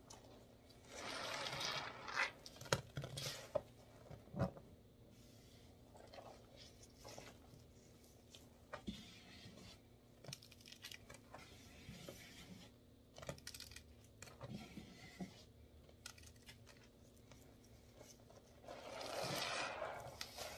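Foam-soaked kitchen sponge squeezed and kneaded by rubber-gloved hands in a tub of detergent suds: wet squelching and crackling of bursting foam with small clicks, loudest in two longer squeezes, one about a second in and one near the end.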